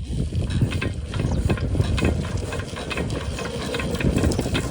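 Diesel engine of an irrigation water pump set, a low rumble with irregular mechanical clicks and clatter.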